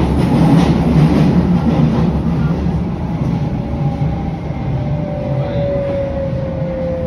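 Berlin U-Bahn train heard from inside the car, running through the tunnel with a loud steady rumble of wheels on rails. From about four seconds in, a thin whine from the drive slides slowly down in pitch as the rumble eases, as the train slows.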